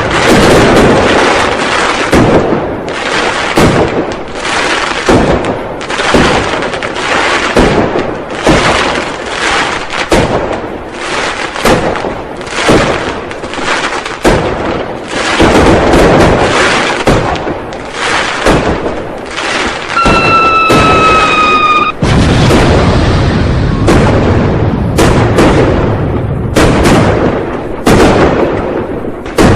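New Year firecrackers and fireworks going off in a continuous barrage of loud, overlapping bangs and crackles. About two-thirds of the way through, a high whistle-like tone sounds for about two seconds, sliding slightly down in pitch.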